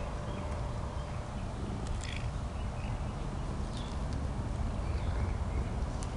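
A steady low rumble with faint, scattered bird chirps over it.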